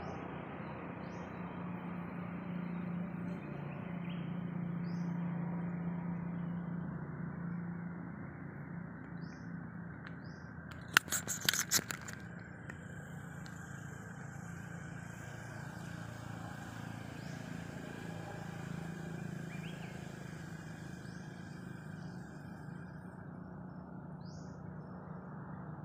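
A steady engine drone with a low hum, swelling a little in the first few seconds and then holding, with a few short bird chirps over it and a quick run of sharp clicks about eleven seconds in.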